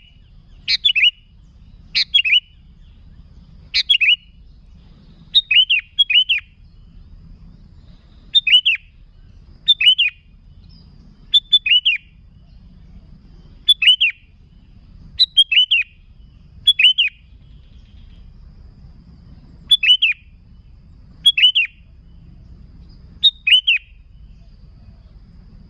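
Sooty-headed bulbul singing repeatedly in short phrases of two or three quick, clear notes that rise and fall, about one phrase every one to two seconds with a few longer pauses. A faint low rumble lies underneath.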